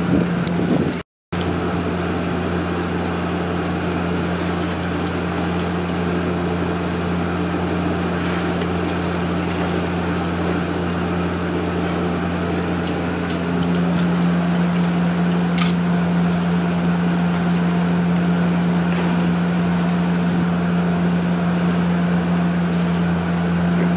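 A steady low machine hum, cut off for a moment about a second in and a little louder from about halfway through.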